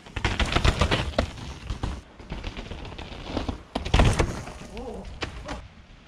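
Mountain bike ridden hard past close by on a dirt trail: a loud, dense clatter of tyres crunching over the dirt and the bike rattling through the first two seconds, then another loud clattering burst about four seconds in.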